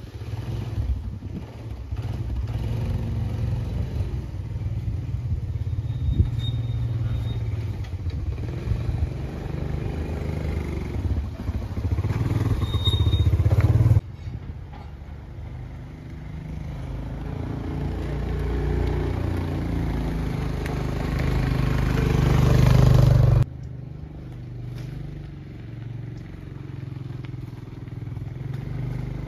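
Small motorcycle engine running as it is ridden, its note rising and falling and growing louder as it pulls along, breaking off abruptly twice, then a quieter engine drone as the motorcycle comes along a dirt path.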